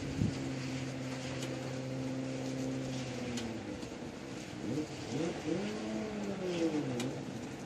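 A road vehicle's engine in city traffic: a steady hum for about three seconds, then its pitch rising and falling as it moves off. Under it, an even hiss of rain with a few sharp drips.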